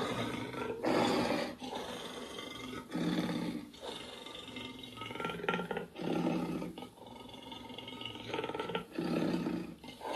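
Werewolf roars and growls: about six short, rough roars in a row, each under a second long, with short pauses between them.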